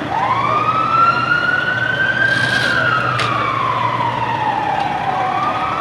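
Emergency vehicle siren in a slow wail: the pitch climbs for about two seconds, falls slowly for about three, then starts climbing again near the end, over a steady low hum.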